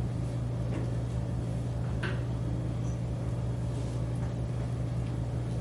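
Steady low electrical hum of classroom equipment, with a few faint short scratches of a pen writing on paper.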